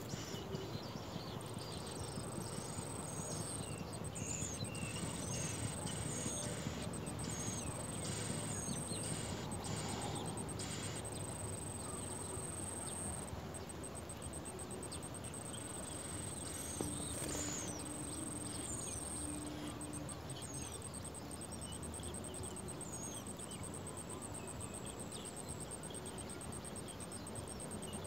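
A very high, fast-pulsing insect trill, steady with brief gaps, along with scattered short high bird chirps. Under it is a steady low background noise.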